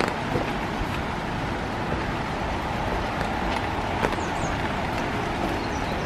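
Steady summer rain falling on forest trees and a wet wooden boardwalk, with scattered footsteps and drips knocking on the deck.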